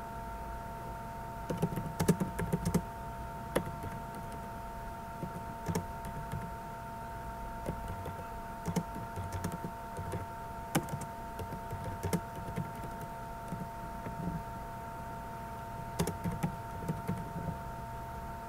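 Typing on a computer keyboard in irregular bursts of keystrokes, with pauses between words, over a steady high hum.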